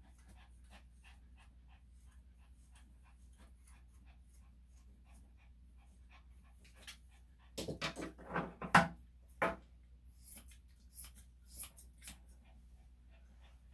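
Senior Maltese-cross dog giving a short run of whimpering cries about halfway through, then panting in short breathy puffs. Before the cries, faint evenly spaced clicks of grooming scissors snipping.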